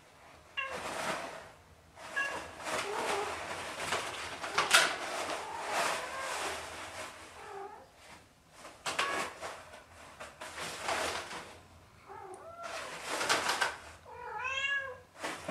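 Kittens pouncing on and tugging at a pile of toilet paper, the paper rustling and crinkling in repeated bursts, with a few short kitten meows near the end.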